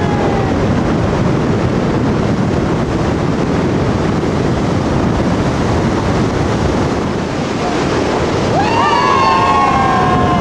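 Steady rushing noise of wind on the microphone mixed with the river rapids far below. Near the end comes a long, rising yell as a bungee jumper leaps from the platform.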